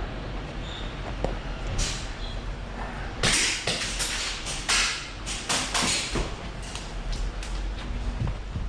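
Airsoft gunfire: a string of sharp, irregularly spaced cracks of single shots and BB hits, clustered in the middle of the stretch.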